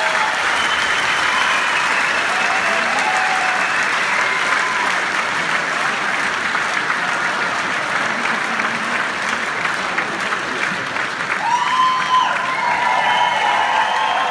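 A large theatre audience applauding and cheering at the end of a song, with a few drawn-out shouts over the clapping near the start and again near the end.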